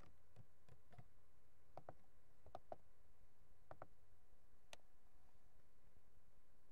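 Faint, irregular clicks of a laptop's keys and mouse buttons, about a dozen in the first five seconds, then only a low steady background.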